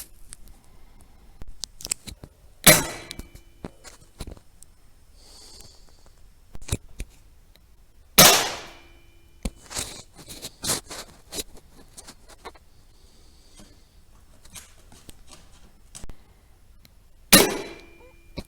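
Three rifle shots, each a sharp crack with a short decaying tail: about three seconds in, about eight seconds in, and near the end. Quieter clicks and knocks fall between the shots.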